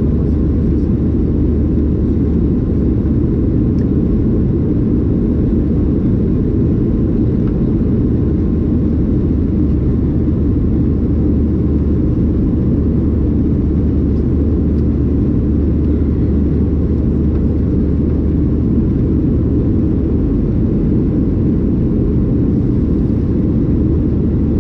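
Steady low rumble of cabin noise inside a Boeing 737-800 in flight: the CFM56 engines and the airflow over the fuselage, heard from a window seat, unchanging throughout.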